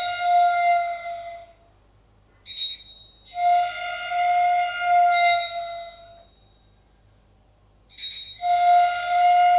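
Slow, spare music on a flute-like wind instrument: three long held high notes, each lasting two to three seconds, with pauses between them. A small bell-like ring sounds just before the second and third notes.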